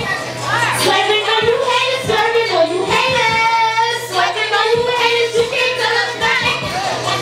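Hip-hop music: a woman's rap vocal over a beat with a steady bass line and a regular kick drum.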